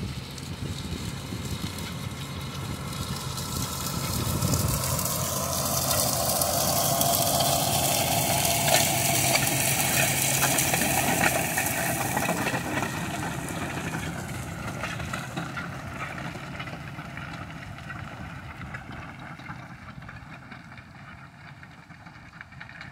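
John Deere tractor's diesel engine running under load as it pulls a Samson PG II slurry tanker with a soil-working bar through stubble, with the hiss and clatter of the bar in the ground. It grows louder over the first few seconds, is loudest around the middle as it passes close, then fades steadily as it moves away.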